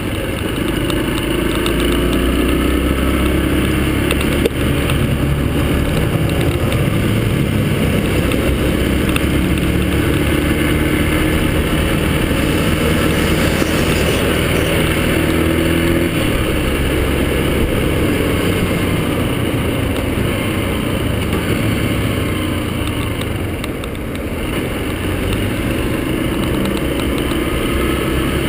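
Yamaha XTZ 125's single-cylinder four-stroke engine running as the bike is ridden, its pitch rising several times as it accelerates. The engine briefly eases off a little over three-quarters of the way through.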